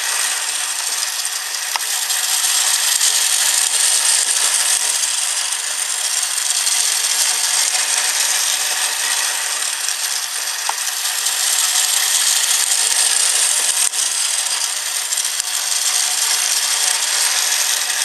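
Battery-powered toy circus train running on plastic track: a steady high whirring of its small motor and gearing, growing louder and softer as it goes round the loop.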